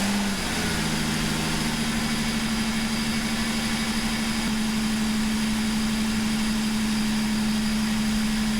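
2007 Mazda 6's 3.0-litre V6 idling just after a start. It settles over the first second or two into a steady, even idle, with its throttle body freshly cleaned.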